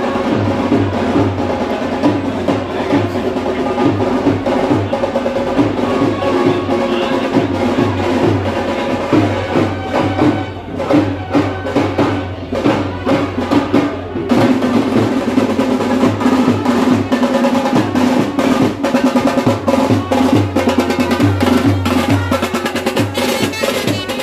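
Music driven by fast, rhythmic drumming with a drum roll feel over sustained pitched instruments. It thins out briefly in the middle, then comes back fuller.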